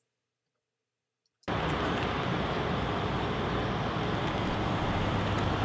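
Near silence for about a second and a half, then steady noise of cars driving along a road cuts in suddenly: engines and tyres on tarmac.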